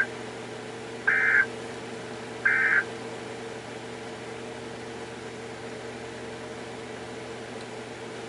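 Emergency Alert System end-of-message data bursts: short buzzy two-tone digital chirps. The tail of one comes first, then two more about a second and a half apart, over a steady low hum that carries on after them.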